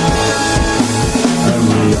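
Rock band playing live, an instrumental passage with electric guitar and drum kit keeping a steady beat.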